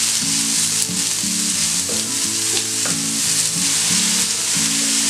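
Chopped onions sizzling in hot oil in a pan, stirred with a wooden spatula: a steady frying hiss.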